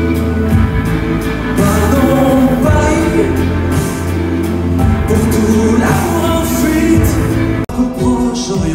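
Live band playing an instrumental passage between sung lines: electric guitar over sustained bass notes. The music breaks off abruptly near the end, then starts again.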